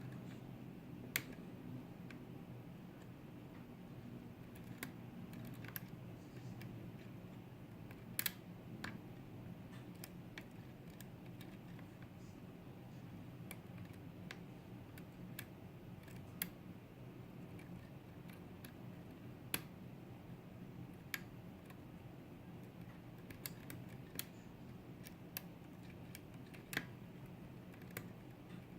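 Sparse, irregular small clicks from a lock pick and tension wrench working the pins of a pin tumbler lock, each click a pin setting or moving under very light tension, over a faint low hum.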